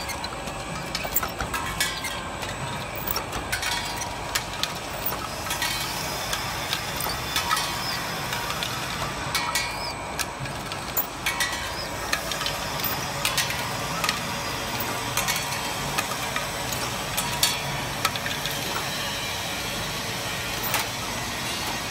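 Automatic aluminum tube filling and folding machine running, a steady mechanical noise with frequent short metallic clicks and knocks.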